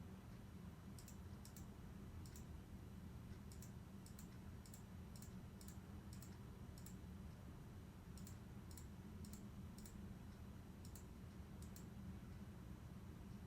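Faint, irregular small clicks, a couple of dozen spread unevenly, over a low steady hum.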